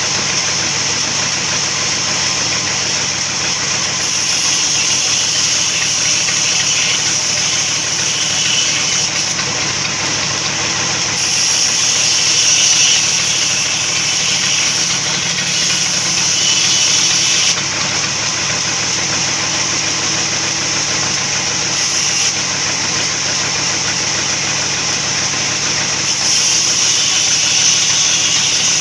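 Sawmill saw running steadily and loudly while cutting wood. Its high hiss grows and fades every few seconds.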